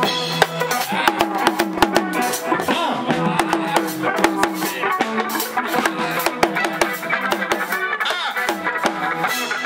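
Fast Senegalese sabar drumming, sharp stick-and-hand strokes in a dense rhythm, with music and a voice behind it.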